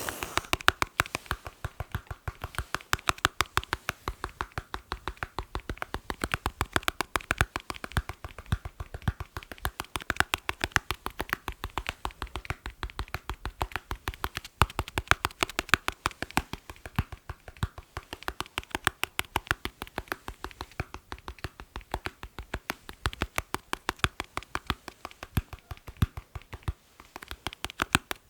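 Fingers tapping rapidly and rhythmically on a hard surface for ASMR, several crisp taps a second in repeating patterns that swell and ease.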